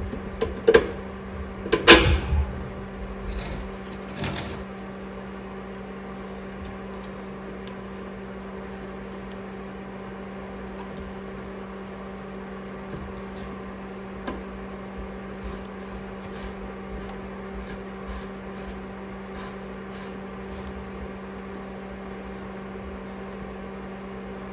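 Sharp knocks and clicks from hand work on a rear traction arm and its bolt, loudest about two seconds in, then only faint occasional clicks, over a steady electrical-sounding hum.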